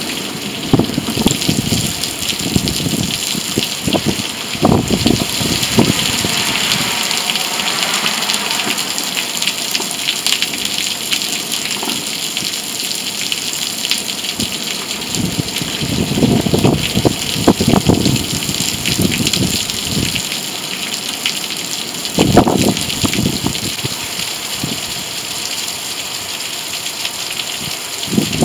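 Heavy rain pouring down and splashing into standing water on flooded ground, a dense steady hiss. A few dull low thumps stand out at several points.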